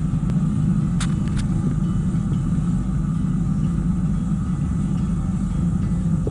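Steady low rumble of wind buffeting the camera microphone and tyre noise while riding a loaded touring bicycle along a trail, with two light clicks about a second in.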